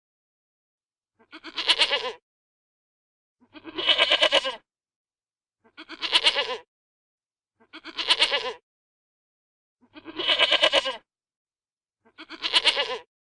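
Goat bleating: six short, wavering bleats about two seconds apart, with silence between them.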